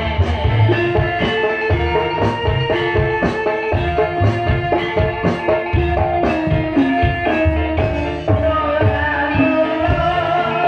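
Live Javanese gamelan music: bronze metallophones and gongs playing a repeating melody over a steady kendang drum beat of about two strokes a second.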